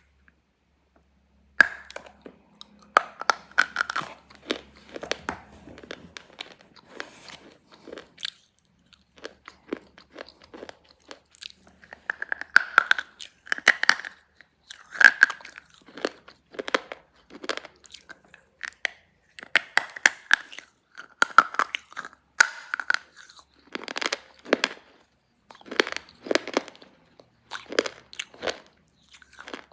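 Slate pencils being bitten and chewed close to the microphone: sharp, crisp crunches and gritty chewing in quick runs, starting after about a second and a half of quiet.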